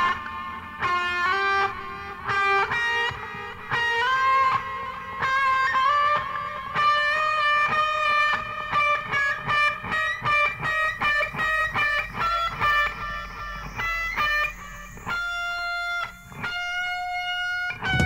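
Instrumental space-rock lead electric guitar through effects, playing rapid runs of notes and then a few longer held notes near the end, played back from a vinyl LP.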